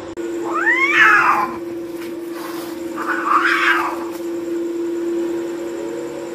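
Two cats squaring off in a fight. A yowl rises in pitch and breaks into a harsh screech about a second in, the loudest moment, and a second harsh screech comes around three seconds in.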